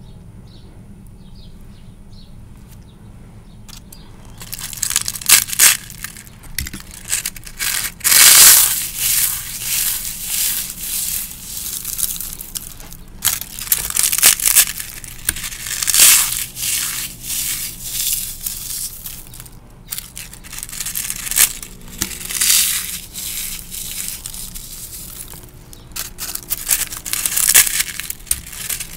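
Dried rose buds and leaves crushed and crumbled between the fingers, a dry crackling crunch coming in irregular handfuls, starting about four seconds in.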